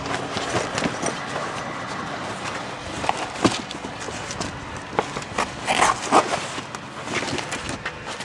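Fabric rustling as a dust guard panel is pushed and tucked into place by hand, with scattered light knocks and clicks of handling.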